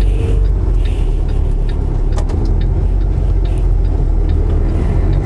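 Semi-truck's diesel engine running steadily with a low rumble as the truck takes a tight right turn, with light ticks about twice a second.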